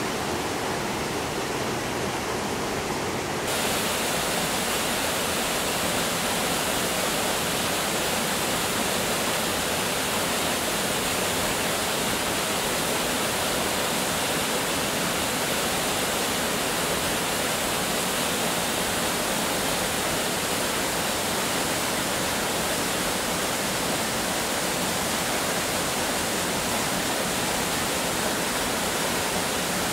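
Waterfall and a rocky mountain stream rushing steadily. About three and a half seconds in, the rush turns brighter and a little louder.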